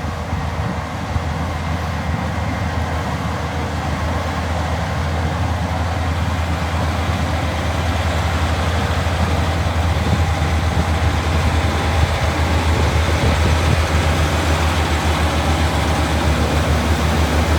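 Diesel engines of corn harvesting machinery running steadily, growing gradually louder as the machines come closer.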